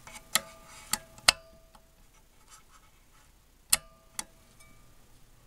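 Five sharp clicks or light taps, three in the first second and a half and two more about four seconds in, the first ones followed by a brief ringing tone, over a faint steady low hum.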